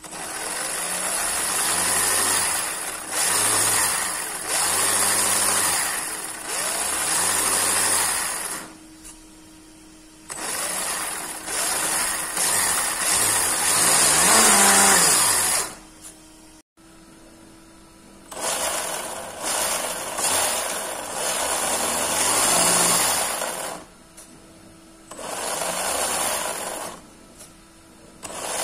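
Electric motor and gear drivetrain of a WPL D12 RC truck whirring in throttle bursts of a few seconds each, its pitch rising and falling as it is revved up and down, with short pauses between bursts.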